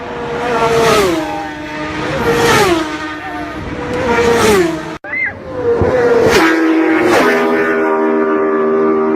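Motorcycles passing close at high speed one after another, about four passes, each engine note dropping in pitch as the bike goes by. After the last pass a steadier engine note holds.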